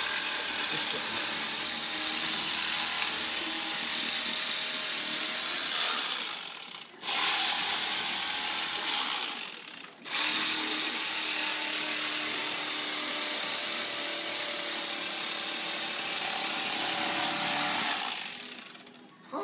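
Electric fillet knife running as it cuts a tautog fillet off the bone, a steady motor buzz in three runs with brief stops about seven and ten seconds in.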